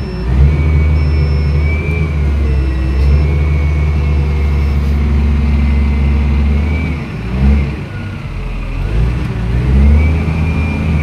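Heavy machine engine running under load and revving up and down, with a high whine that rises and falls alongside it.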